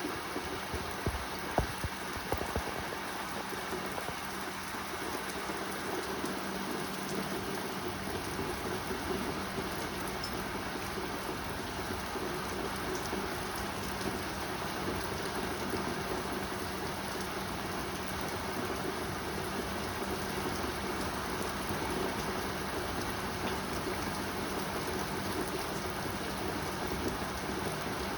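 Rain pouring down steadily, with a few sharp taps in the first couple of seconds.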